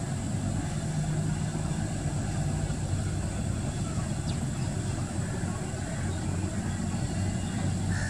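Steady low engine hum and rumble, with a faint short high chirp about four seconds in.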